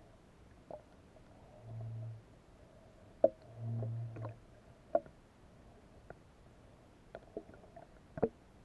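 Muffled underwater sound picked up through a submerged camera's waterproof housing: a few sharp clicks or knocks, the loudest about three seconds in and another near the end, and two short low hums about two and four seconds in.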